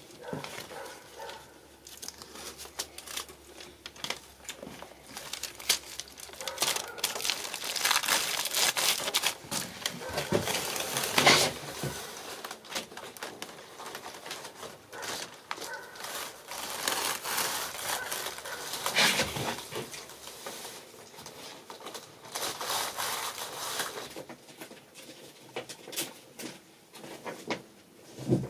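Irregular crinkling and rustling of aluminium foil tape and foil-faced bubble insulation as the tape is handled and pressed down along a seam, with sharp little crackles and louder swells.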